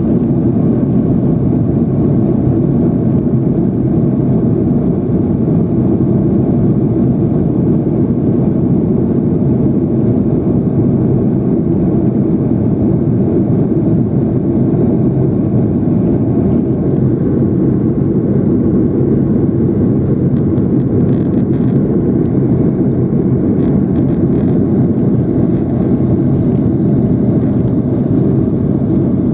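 Steady cabin noise inside a Boeing 757-200 in flight after takeoff: the jet engines and rushing air combine into an even, low-pitched drone.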